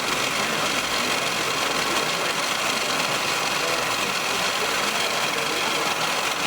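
Motors of radio-controlled construction machine models running steadily, an even mechanical whir without breaks.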